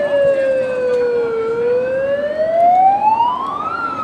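A siren wailing in one slow sweep: its pitch falls for about a second and a half, rises for a little over two seconds, then turns down again near the end.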